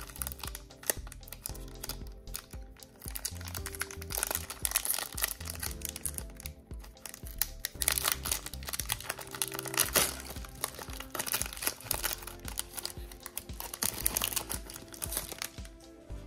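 Foil Pokémon booster pack wrapper crinkling and tearing as it is opened by hand, in many quick crackles, over background music with held notes.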